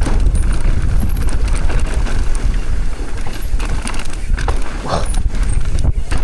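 Mountain bike riding down a rough dirt trail: a heavy, steady wind rumble on the microphone, with the rattling and knocking of tyres over rocks and roots and of the bike itself.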